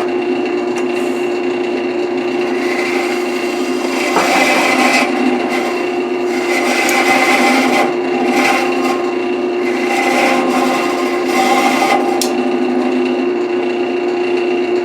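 Wood lathe running with a steady motor hum while a carbide turning tool cuts into the spinning wood in several scraping passes, mostly between about four and twelve seconds in.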